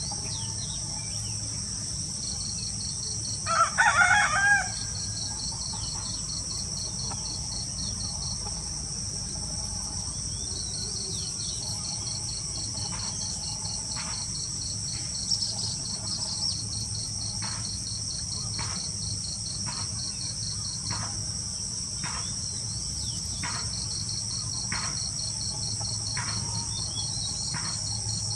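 Crickets and other insects trilling steadily, with a rooster crowing once about four seconds in, the loudest sound. From the middle on, short chirps repeat about once a second.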